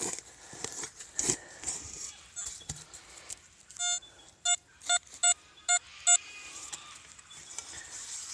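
Metal detector giving a row of about six short, even beeps on one steady pitch, a little over two a second, after a few scraping knocks of digging: the target is still in the hole.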